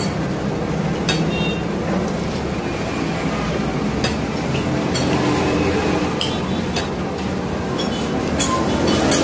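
Spoon clinking and scraping against a ceramic plate of rice and chicken satay while eating: half a dozen short, ringing clinks spread out over a steady low background hum.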